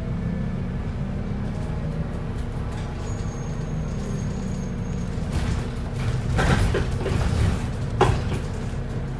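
Wright New Routemaster hybrid bus's diesel engine running steadily as a low rumble, heard from inside the passenger cabin. From about five seconds in there are a couple of seconds of hissing noise, then a single sharp knock near the end.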